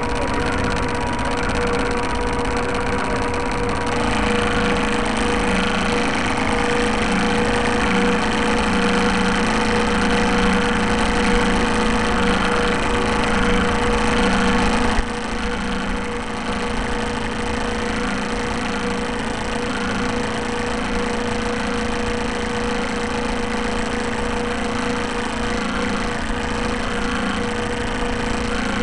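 The motor of a radio-controlled model boat running steadily, picked up by the onboard camera, with a constant thin whine. Its sound strengthens about four seconds in and drops in level about halfway through.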